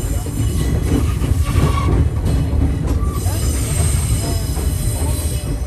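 Echizen Railway MC5001 railcar running through points and curves with a steady low rumble of the wheels, its wheel flanges squealing against the rails on and off in high patches.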